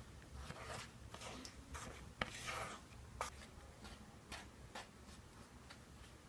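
A spatula scraping and pushing flour around a metal baking tray, a string of soft, irregular rubbing strokes, with one sharper click and a brief hiss of sliding powder a little past two seconds in.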